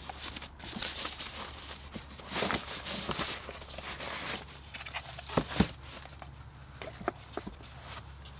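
Fabric bag rustling and plastic storage boxes and crates being handled and lifted out of a car's cargo area, with two sharper knocks about five and a half seconds in and a few light clicks after.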